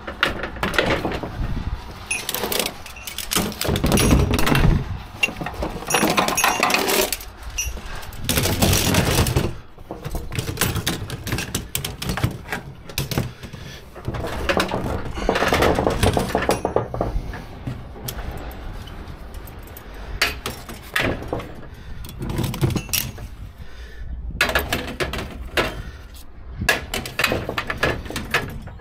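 Cargo ratchet tie-down straps being handled: steel hooks and ratchet buckles clinking and rattling against each other and the trailer's rail, with the swish of webbing being pulled, in irregular bursts.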